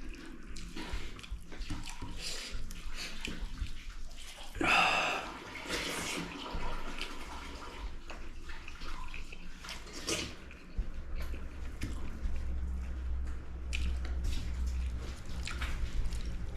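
Close, wet eating sounds of chicken being chewed, with lip smacking and scattered small clicks and a louder burst about five seconds in. A low hum comes in about eleven seconds in.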